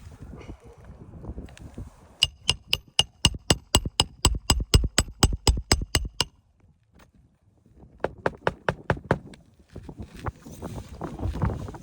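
Hand tool striking metal on a shingle roof in quick, rapid taps, about five a second: a run of about twenty, a pause, then a shorter run of about eight, followed by scuffing on the shingles.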